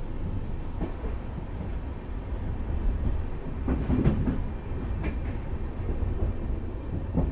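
Steady low rumble of a double-decker railway coach running on the track, heard from inside the carriage, with a couple of louder clunks from the running gear about four seconds in and near the end.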